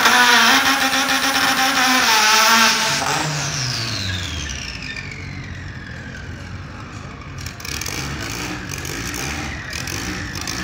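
Race car engine running at high revs, then its pitch falls steeply and fades over a few seconds as it runs away down the strip. A lower engine rumble carries on afterwards.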